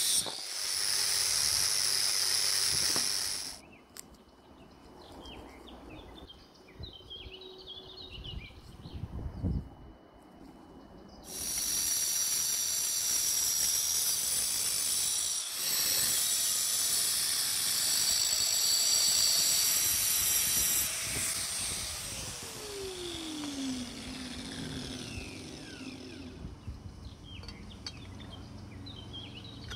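Angle grinder with a thin cutting disc cutting through a metal bar held in a vise: a loud steady high hiss for about three seconds, a quieter pause, then a second cut of about ten seconds. After the second cut the grinder's motor winds down with a falling whine.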